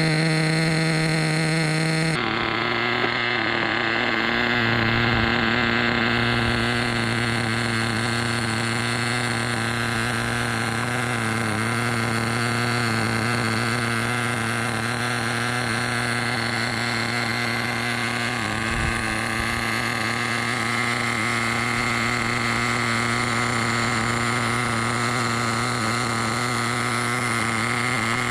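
After about two seconds of synth music, a Force 21 nitro engine (a small glow-fuel two-stroke) runs steadily at a low, even speed on a stand during its static break-in, with only small wavers in pitch.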